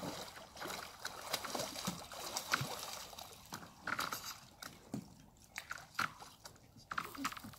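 Lake water sloshing and thin ice crunching, with scattered sharp clicks and scrapes as a person hauls herself out of the water onto the ice with hand-held ice picks.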